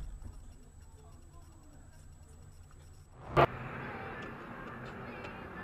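Faint low rumble of a car interior picked up by a dash cam. A single sharp click comes a little over three seconds in, and then the steady road noise of a moving car sets in.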